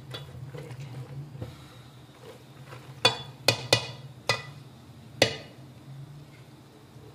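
Metal spoon stirring black-eyed peas in masala in a metal pot, then five sharp metallic clanks of the spoon knocking against the pot between about three and five seconds in, over a steady low hum.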